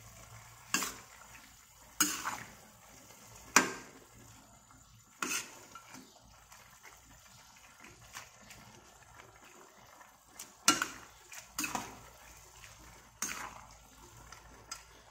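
A metal ladle clinking against a stainless steel wok while stirring and lifting noodles in broth: sharp, irregular clinks every second or two, with a quieter stretch in the middle.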